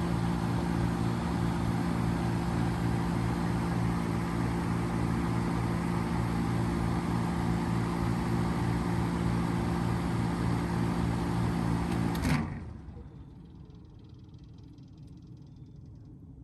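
3.5-ton Trane XL1200 packaged heat pump running in heat mode: steady compressor hum with fan air noise. About twelve seconds in the unit shuts down, and the hum cuts off abruptly after a brief surge, leaving only a faint low rumble.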